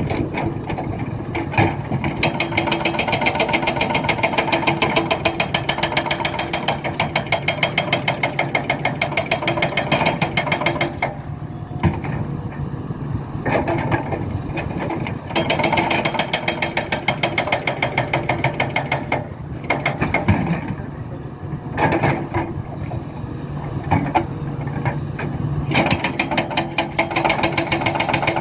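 Hydraulic breaker on a Hidromek 300LC excavator hammering in rapid, evenly spaced blows, in long bursts broken by several short pauses, over the steady running of the excavator's diesel engine.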